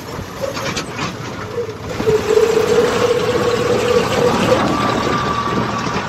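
Deutz-Fahr farm tractor's diesel engine running steadily while driving. A steady high tone joins it about two seconds in and holds for a couple of seconds.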